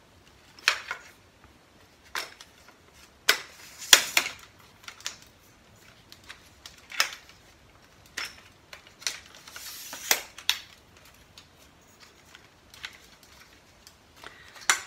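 Irregular clicks and clacks of an aluminum camera tripod being handled: its plastic leg-lock joints snapping and the metal leg sections knocking, some in quick pairs, loudest about four seconds in.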